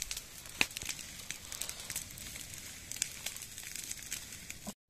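Dry grass and brush burning, with irregular crackles and pops over a steady hiss; the sound cuts off abruptly near the end.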